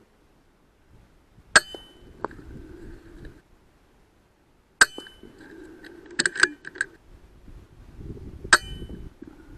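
Three sharp, ringing cracks from a .22 AGT Uragan 2 PCP air rifle firing, a little over three seconds apart. Quick metallic clicks fall between the second and third.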